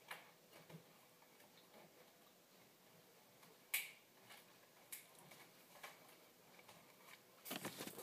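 Near silence: room tone with a few faint scattered clicks, the sharpest about four seconds in. Near the end, rustling and handling noise as the phone recording it is picked up.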